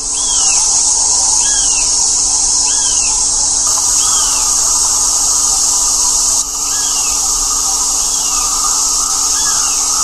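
A steady, high-pitched insect chorus, with a bird's short rise-and-fall chirp repeated about once a second.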